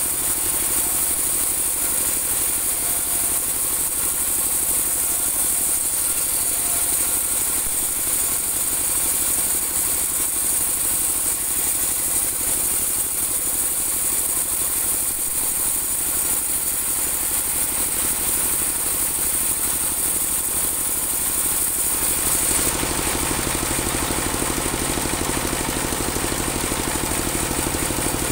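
Engine of a portable bandsaw mill running steadily. A high hiss rides over it through most of the stretch and drops away about 22 seconds in, leaving the engine's lower hum.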